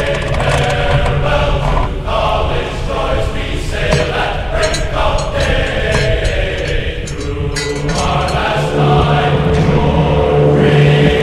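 Background music with choir-like singing voices in long held notes.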